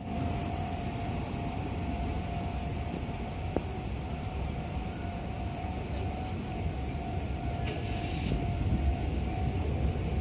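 Road traffic: a steady low rumble of vehicle engines with a steady hum over it, and a brief hiss about eight seconds in.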